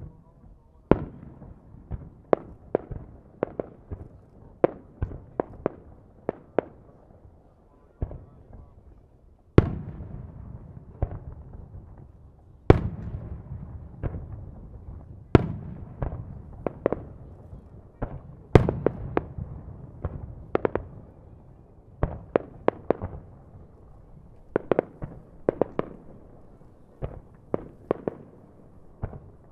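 Aerial fireworks shells bursting in a rapid, irregular series of sharp bangs, with several louder booms that echo and rumble away.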